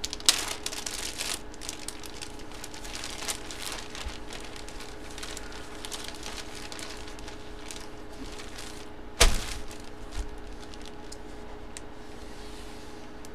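Clear plastic bag around a jersey crinkling and crackling as it is handled, with one sharp knock about nine seconds in, over a faint steady hum.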